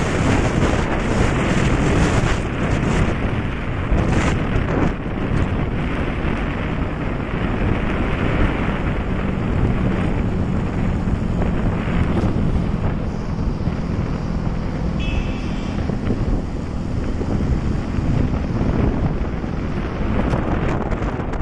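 Wind rushing and buffeting over the microphone on top of the steady road and engine noise of a moving vehicle. A low engine drone rises out of the noise partway through, and a brief high tone sounds about fifteen seconds in.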